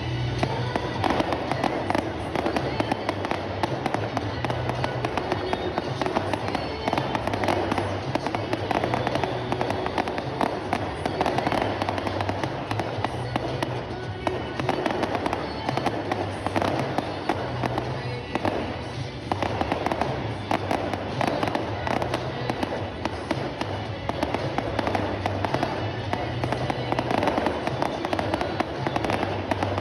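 Fireworks display: a dense, continuous crackle of bangs and pops, over music with a steady bass beat.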